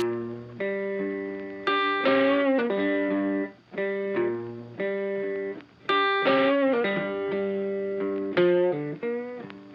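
Intro music: a guitar playing a plucked melody of sustained, ringing notes.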